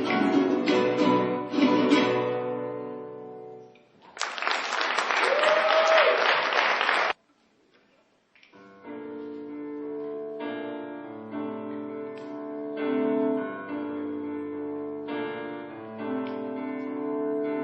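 Latin band music fading out, then about three seconds of loud noise that cuts off abruptly, and after a brief silence a new instrumental piece of plucked guitar and piano-like notes.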